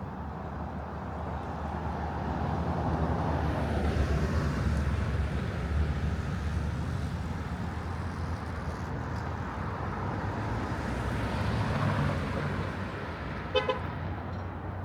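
Road traffic: vehicles driving past, the noise swelling twice as they go by, then a car horn gives a short double toot near the end.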